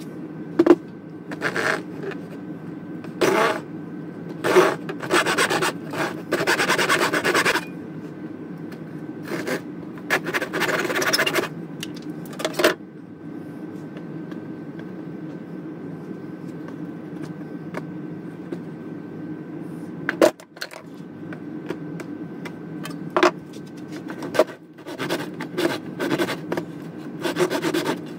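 Steel ball peen hammer head scraping and rubbing against a wooden handle as it is worked down onto it, in a run of short scrapes with sharp knocks between them. The scrapes pause for several seconds in the middle, then resume with a few more knocks and scrapes near the end.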